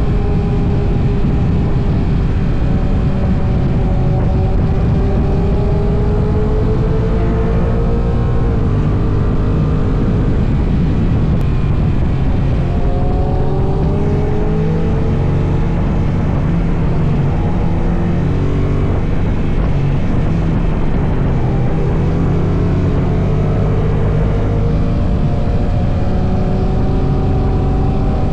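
Honda NT1100's parallel-twin engine running at highway speed under heavy wind rush on the microphone. The engine pitch falls about eight seconds in as the bike slows, climbs again a few seconds later, then eases off and rises once more near the end.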